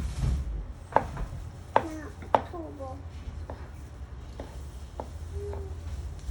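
Knife chopping cilantro on a cutting board: a handful of separate sharp chops, spaced irregularly about a second apart.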